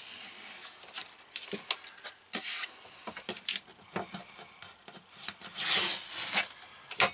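Blue painter's tape being peeled off a laminated cabinet door, a ripping hiss that comes in bursts, the longest and loudest near the end. Light clicks and knocks from hands and hardware on the cabinet come in between.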